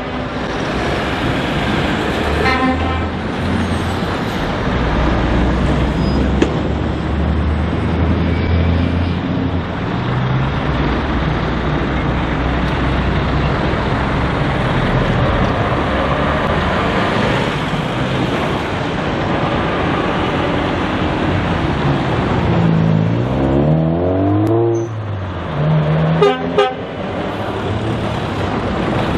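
Scania truck-and-trailer's diesel engine running as it pulls around and drives past, with tyre and traffic noise. Brief horn toots about two and a half seconds in and again near the end, and the engine revs climb and drop through gear changes shortly before the second toot.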